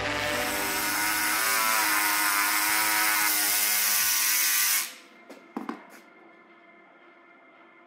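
Belt sander running against the fibreglass hull, stripping back gelcoat; it cuts off suddenly about five seconds in, followed by a couple of light knocks.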